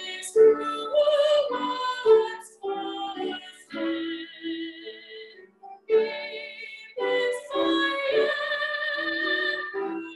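A woman singing solo, unaccompanied, with vibrato, in phrases broken by short breaths.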